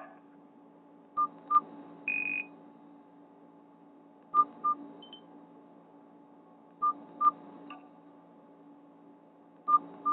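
Nokia 216 mobile phone keypad beeps: short beeps in pairs, each with a faint click, coming every two to three seconds, plus one higher, slightly longer beep about two seconds in. These are key tones from scrolling through the phone's ringtone menu between ringtones.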